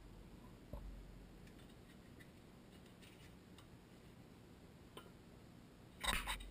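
Faint scattered clicks and ticks of hands handling fittings around a well pressure switch, with a short burst of rattling clicks near the end.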